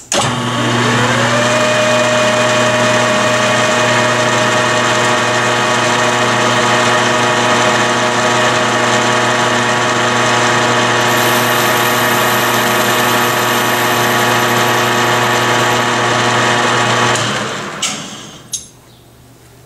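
Metal lathe switched on and spinning up, a whine rising over about a second and a half to a steady running hum, while the cutter is fed into the shotgun barrel's muzzle to cut its crown. Near the end the lathe is switched off and winds down, followed by a couple of short clicks.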